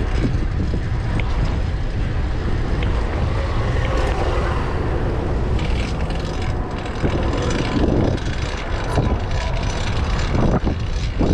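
Wind buffeting the microphone of a fixed-gear bike on the move, with road noise underneath and a few short swells near the end.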